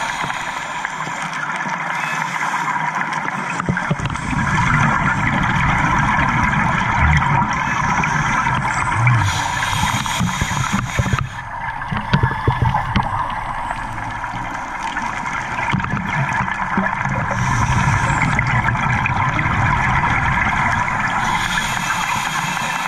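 Underwater sound picked up through a camera housing: a steady hiss and low rumble, with scuba divers' exhaust bubbles gurgling in surges every few seconds and a few sharp clicks about halfway through.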